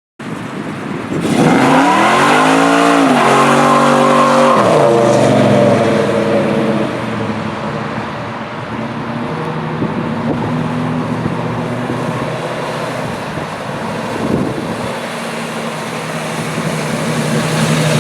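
AMC Javelin's engine revving hard during a burnout, rear tyres spinning: the revs climb and fall sharply in the first few seconds, then it runs on more steadily and a little quieter over the hiss of the spinning tyres, picking up again near the end.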